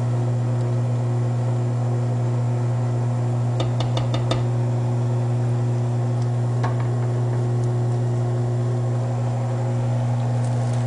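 Steady low electrical hum from a kitchen appliance, unchanging throughout. A few light clicks about four seconds in, and one more a little later, from the spoon knocking the pot during stirring.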